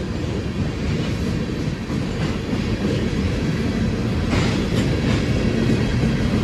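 Freight train of tank cars rolling past: a steady rumble of steel wheels on the rails, with a few clicks from the wheels about four to five seconds in.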